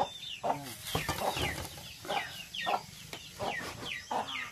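Chickens clucking over and over in short falling calls, with a long knife chopping cooked meat on a wooden chopping block.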